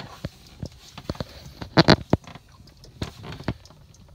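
Irregular clicks and knocks of things being handled, with a louder close pair of knocks about two seconds in.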